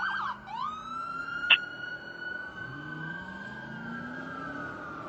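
Fire engine's siren changing from a fast yelp to a slow wail: the rapid warble stops just after the start, the pitch sweeps up, holds steady, then begins to fall near the end. A single sharp click about a second and a half in.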